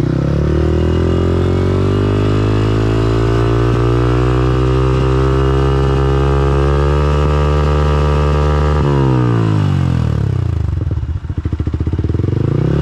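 Yamaha R15 V4's single-cylinder engine through an aftermarket R9 exhaust, revved up and held at high revs for about eight seconds, then let drop back toward idle, and revved again near the end.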